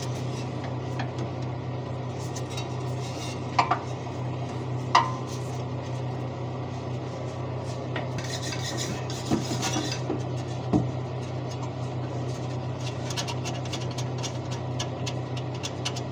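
Metal clinks, knocks and scraping of hand tools or loose metal parts being handled, over a steady low hum. Two sharp ringing clinks come a few seconds in, with knocks and scratchy rattling later on.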